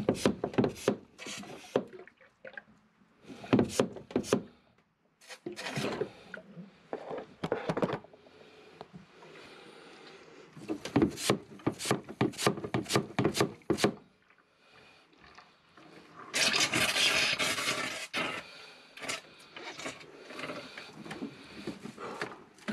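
Knocks, clicks and rubbing of a suction hose and fittings being handled down in an oily boat bilge. About sixteen seconds in comes a loud hiss of about two seconds, as liquid and air are sucked up the hose into a vacuum oil extractor.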